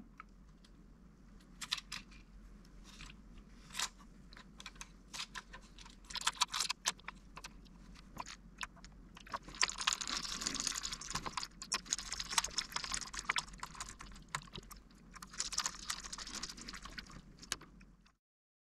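Small clicks, taps and scrapes of hands working on an opened radio-control transmitter's plastic case and parts, with a small screwdriver turning screws. The scraping and clicking grows denser about ten seconds in, and again about fifteen seconds in, then stops suddenly shortly before the end.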